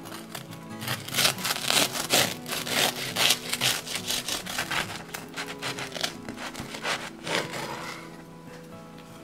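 Kitchen knife sawing back and forth through a crisp toasted sandwich on a wooden cutting board, a rasping stroke about three times a second that fades away near the end.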